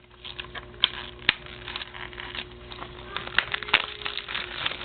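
A plastic DVD case and its wrapping being handled: crinkling with several sharp clicks, over a steady low hum.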